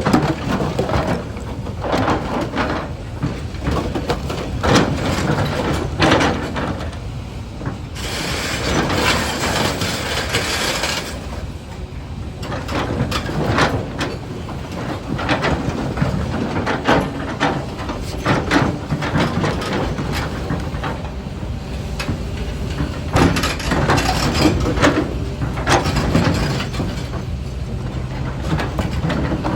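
Doosan DX390 hydraulic excavator working rock: its diesel engine runs steadily under irregular clattering and knocking of stone against the bucket. About eight seconds in, a rushing hiss rises for some three seconds.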